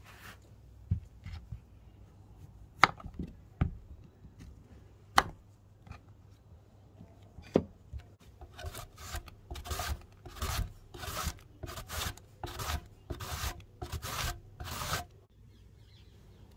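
A courgette being slid across the slicing blade of a stainless-steel box grater: a run of rasping strokes, about two a second, in the second half. Before it, a few light knocks and taps from handling the courgettes on a wooden board.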